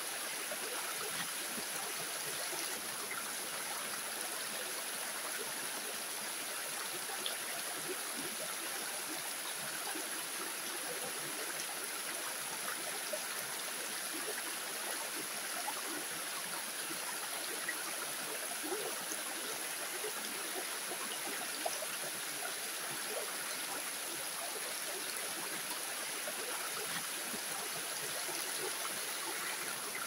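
Light waterfall running in several thin streams down rocks: a steady rush of falling water with small irregular splashes over it.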